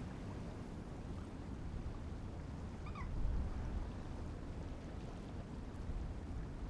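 Wind buffeting the microphone as a steady low rumble, swelling briefly about three seconds in, with one short animal call at the same moment.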